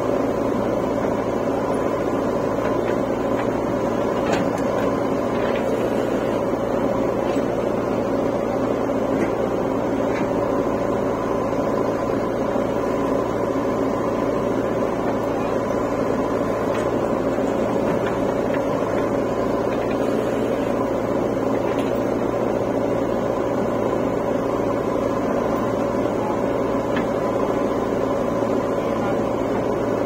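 Diesel engines of a JCB 3DX backhoe loader and a tractor running steadily at a constant speed while the backhoe digs and loads soil, with a few faint knocks.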